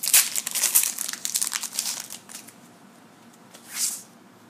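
Yu-Gi-Oh booster pack wrappers crinkling and tearing as packs are opened: dense crackling for about two seconds, then quieter, with one short rustle near the end.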